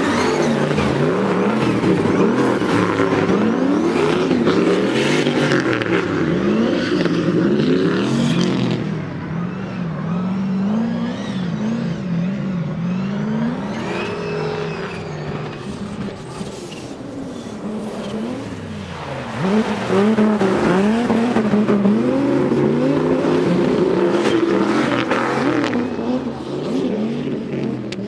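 Two drift cars sliding in tandem, their engines revving up and down in quick, repeated swings, with tyres screeching under the slide. The sound drops back in the middle as the cars draw away, then swells again as they come close.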